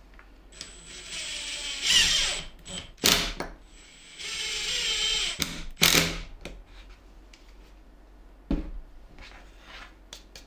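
Cordless impact driver with a drill bit boring holes into layered plywood, in two runs a few seconds long, each ending in a loud burst. A single knock follows about eight and a half seconds in.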